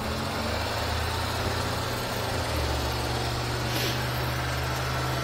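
Small Daihatsu kei van engine idling steadily, freshly started.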